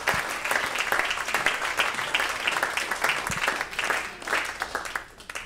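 Audience applauding, dense clapping that thins out and dies away near the end.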